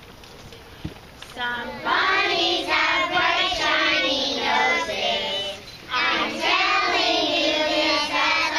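A group of young children singing a song together, starting about a second in, with a short break a little past the middle.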